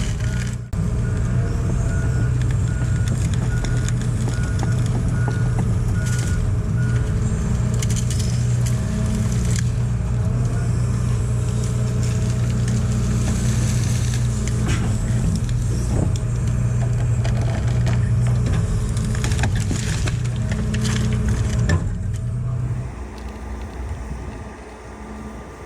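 Excavator's diesel engine running steadily while it works a hydraulic grab, with scattered knocks and clunks. For the first several seconds a reversing alarm beeps about twice a second. The engine sound drops away near the end.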